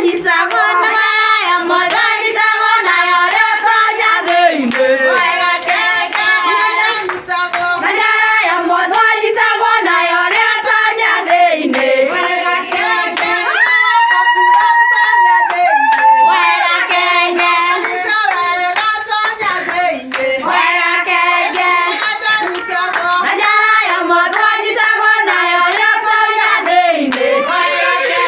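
Several voices singing together with hand clapping throughout.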